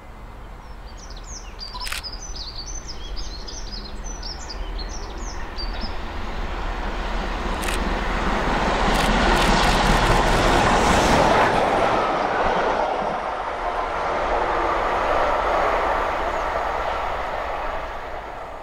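LMS Black Five 4-6-0 steam locomotive 44871 running through at speed with its train. The sound builds as it approaches, is loudest as the engine passes about ten seconds in, and fades as the train runs by. Birds chirp in the first few seconds.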